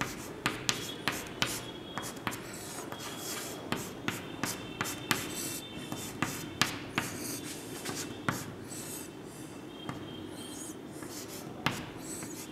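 Chalk writing on a blackboard: scratchy strokes broken by irregular sharp taps as the letters and plus signs are drawn.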